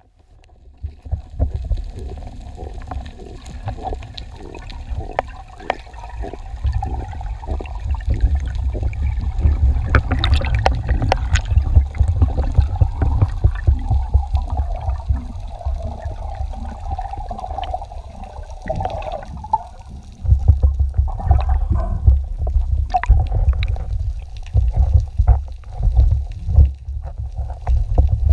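Underwater sound in the sea: a loud, uneven low rumble of moving water with many small clicks and crackles scattered through it.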